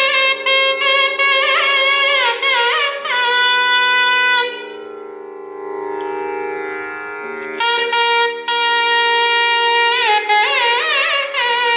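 Nadaswaram, the long South Indian double-reed pipe, playing a melody in raga Pilu with sliding, ornamented notes over a steady drone. For about three seconds in the middle the melody drops away to a softer held tone over the drone, then comes back.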